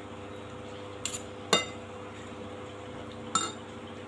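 Metal fork clinking against a glass plate while twirling and lifting noodles: three sharp clinks, the second and loudest about a second and a half in, the last near the end.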